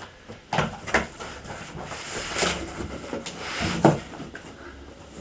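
Cardboard monitor box being opened by hand: the cardboard rubbing and scraping as the flaps are worked open, with a few knocks, the loudest a thump nearly four seconds in.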